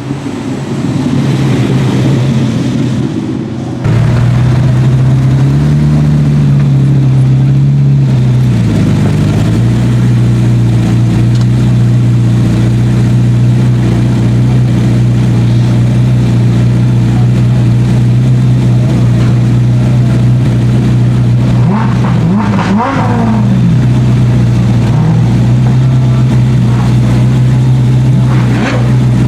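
An engine running loud and even at steady revs. It begins uneven, settles abruptly into a held note about four seconds in, rises and dips briefly a few seconds later, then holds steady for the rest.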